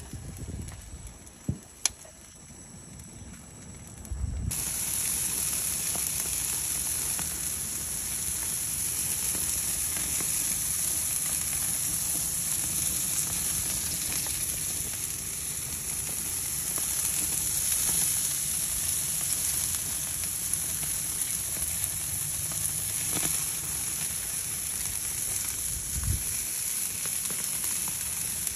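Meat and peppers sizzling on a barbecue grill: a steady high hiss that starts suddenly a few seconds in, after a quieter opening with a few soft knocks.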